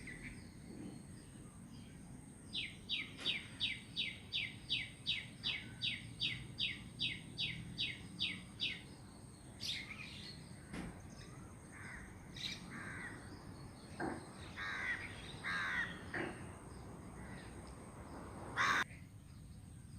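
Wild birds calling. One bird repeats a sharp, downward-slurred note about three times a second for some six seconds, then scattered single calls follow, with one short, loud call near the end.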